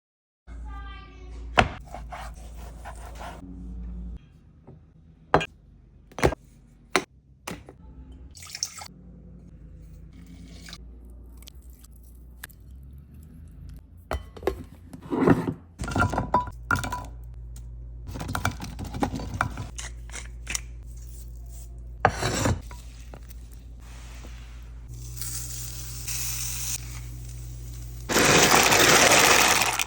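Kitchen cooking sounds: utensils and dishes clinking and knocking, with some water sounds. Near the end a loud steady hiss starts up.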